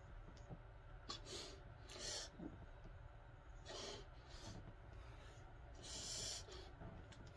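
A man's hard breathing with exertion during a bodyweight workout: about four short hissing exhales, a second or two apart, over faint room hum.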